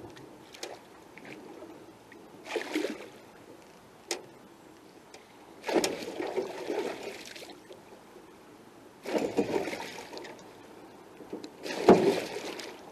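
A muskie thrashing in a landing net beside a boat, splashing the water in several bursts, the loudest near the end.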